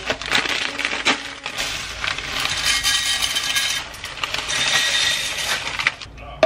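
Grocery packaging being handled: a dense rustling and crinkling with a few small clicks and knocks, the rustle running for several seconds.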